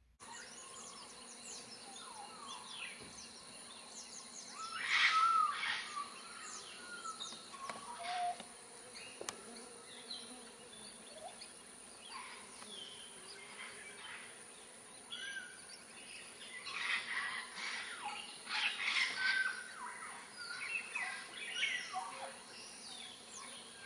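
Rainforest chorus of many birds chirping and calling over a steady high insect drone. Louder bouts of calling come about five seconds in and again from about seventeen to twenty seconds in.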